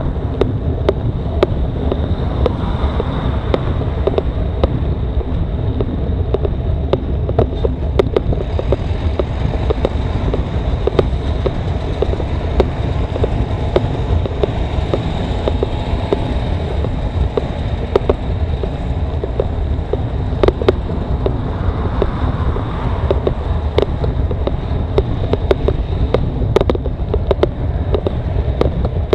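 Wind buffeting the microphone on a moving bicycle, a steady low rumble, with frequent sharp clicks and rattles throughout and a faint steady high whine.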